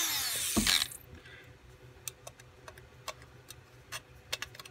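Hand-held rotary tool that has just cut into a thin aluminium bottle, running free and winding down with a falling whine in the first second. After that come scattered light clicks and ticks as the cut-out piece of aluminium is worked loose from the bottle.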